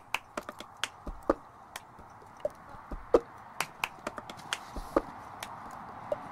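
Hoofbeats of a pony and a horse walking on dry, hard-packed dirt: irregular sharp clicks and knocks, a few of them with a dull thud, over a faint steady hiss.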